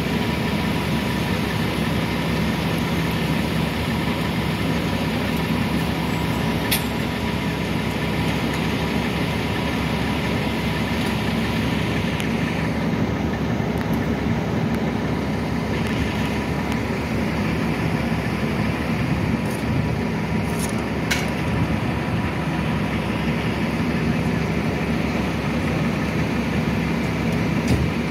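Fire engine's diesel engine running steadily on scene, a constant hum with a faint steady tone above it. A couple of sharp clicks cut through it.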